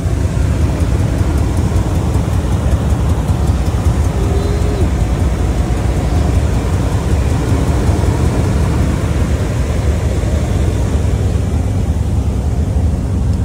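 Lifted pickup trucks' engines idling, a steady low rumble.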